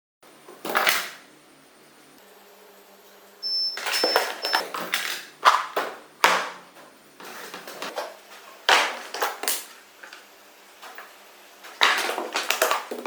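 Clattering and clinking of dishes and containers being handled and set down, in several separate bursts, with a brief high beeping about four seconds in.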